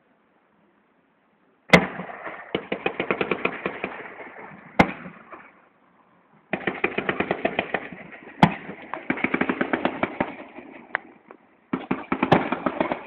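Fireworks display: after a moment of near silence, three bursts of rapid, dense crackling, each opening with a sharp bang, with single loud bangs in between and short pauses between bursts.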